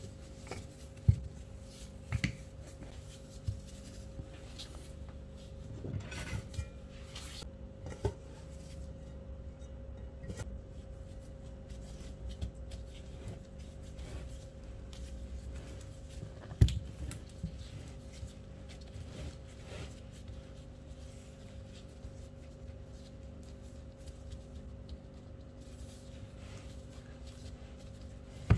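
Dough being worked by hand: a wooden rolling pin on a plastic tablecloth, then a thin dough sheet laid and pressed into a metal pan, giving soft rubbing and scattered sharp knocks, the loudest about a second in and about seventeen seconds in. A steady hum runs underneath.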